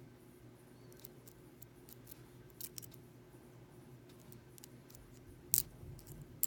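Lock pick and tension wrench working in the keyway of an Ace A527 hardened steel padlock: faint, irregular small metallic clicks and scrapes, with one sharper click about five and a half seconds in.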